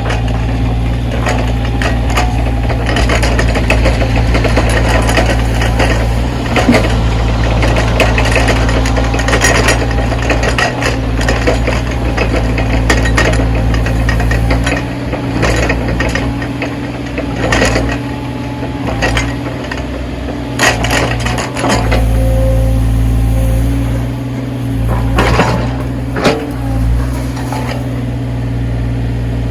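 A backhoe's diesel engine running steadily, with frequent clanks and knocks from the machine as it works snow.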